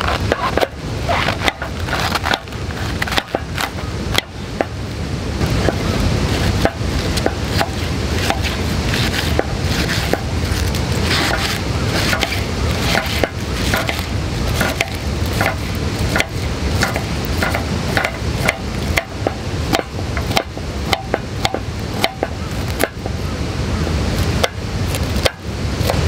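A knife cutting cabbage on a wooden cutting board: an irregular run of quick, crisp cuts, several a second at times, over a steady low background rush.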